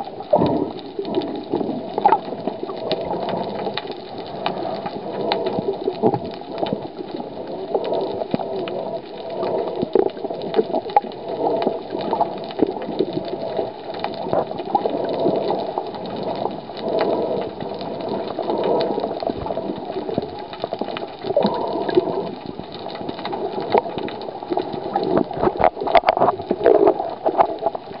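Muffled water sloshing and gurgling around an underwater camera held at the surface, with scattered clicks and knocks.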